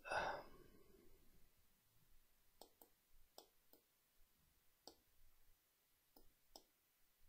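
Faint, sharp clicks of a computer mouse button, several coming in quick press-and-release pairs as lines are drawn, after a short rushing noise at the start.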